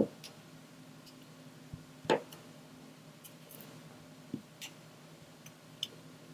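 Diamond-painting work: scattered light clicks and taps of a drill pen and resin drills on the sticky canvas and tray. Two louder taps come at the start and about two seconds in.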